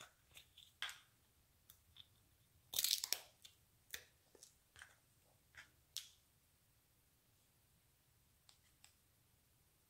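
Small plastic jar of luster dust being twisted open and handled: a scatter of light clicks and ticks, with a short crackling, tearing sound about three seconds in.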